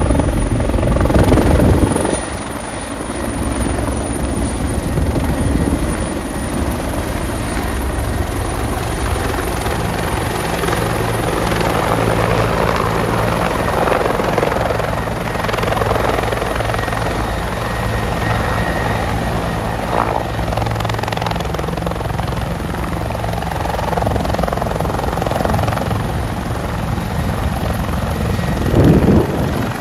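Bell 412EP twin-turbine helicopter approaching, hovering low and settling onto a helipad, its four-bladed main rotor and engines running steadily. Loudest in the first couple of seconds, with a brief louder burst near the end.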